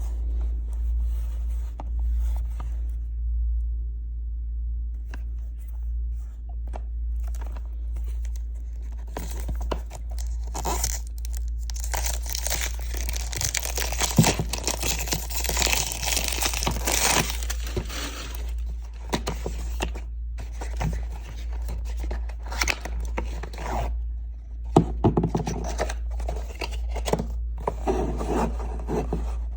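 Perfume packaging handled and opened by hand: plastic wrap tearing and crinkling and a cardboard box scraping, with sharp clicks and knocks. The rustling is densest in the middle, and there is a steady low hum underneath.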